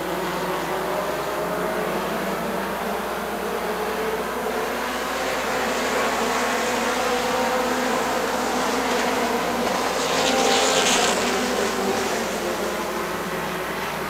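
Pony stock cars' small four-cylinder engines running hard together as the field laps the dirt oval, a steady buzzing drone of several engines. It swells to its loudest about ten seconds in, then eases back.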